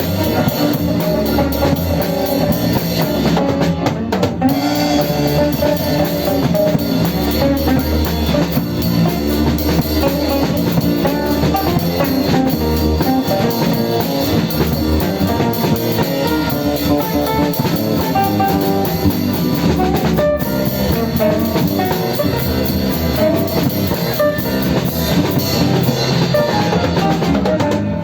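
Music with drums and guitar playing steadily, with brief breaks about four seconds and twenty seconds in.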